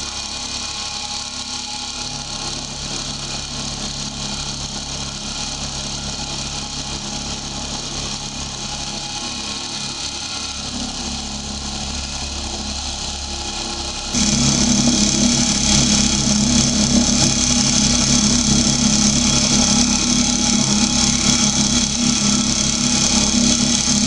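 Drill press running as a milling machine, its motor and spindle giving a steady hum. About fourteen seconds in the sound abruptly becomes louder and harsher, with a strong hiss added over the hum, and stays so.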